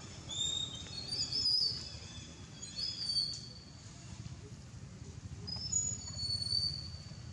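Wild birds chirping: short, high whistled notes, some gliding, with a burst of calls about a second in and more near the end, over a steady low rumble.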